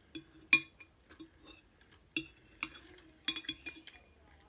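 A metal fork clinking and scraping against a plate as food is picked up. There are several sharp clinks with a short ring: the loudest comes about half a second in, and a quick run of clinks comes near the end.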